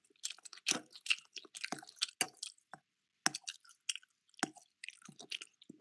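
A person chewing pasta close to a voice-chat microphone: a quick, irregular run of mouth smacks and clicks.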